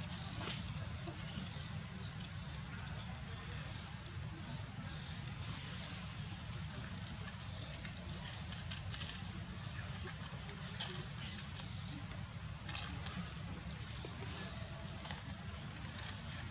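Birds chirping in a rapid run of short, high-pitched notes, with two longer unbroken stretches, one about nine seconds in and one near the end, over a steady low rumble.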